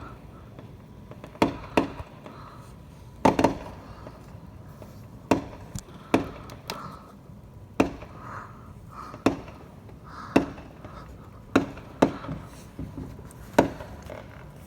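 Fireworks going off: a series of sharp bangs and pops, about one a second at irregular spacing, each with a short echo.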